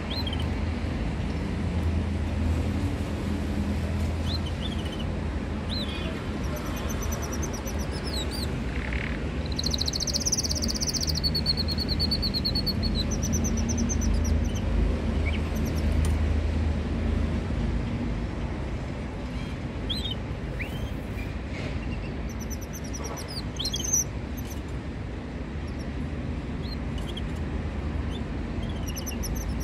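Caged canaries chirping in short, high calls scattered through, with one longer, brighter call about ten seconds in, over a steady low rumble.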